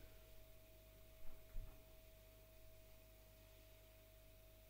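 Near silence: room tone with a faint, steady high hum, and two soft, brief sounds a little over a second in.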